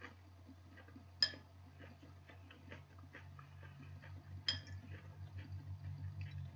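An eating utensil clinking against a dish twice, sharply, about a second in and again past the middle, with small soft clicks of eating in between, over a low steady hum.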